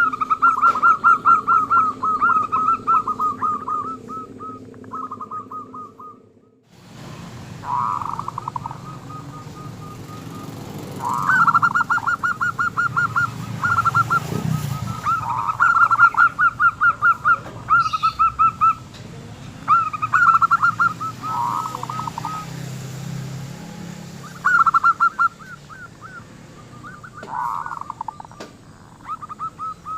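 Local zebra dove with a small, rough-edged ('kerok') voice cooing in repeated phrases of fast, staccato pulsed notes, over a low steady hum.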